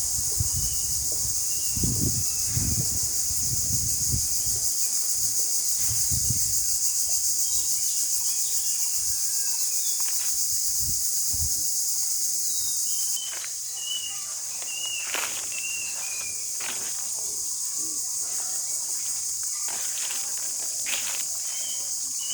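Dense, steady high-pitched insect chorus, crickets among them, with short bird chirps repeating over it. Low rumbles come and go in the first half, and the chorus drops slightly in level about 13 seconds in.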